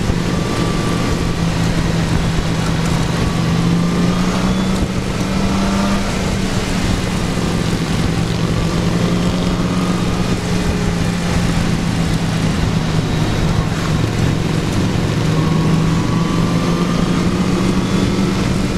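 Motorcycle engine running steadily at cruising speed on the open road, with wind rushing over the microphone. The engine's pitch eases down a little about six seconds in and picks up again near the end.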